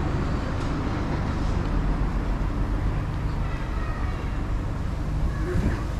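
Town-centre street ambience: a steady low rumble of road traffic, with faint voices of passers-by.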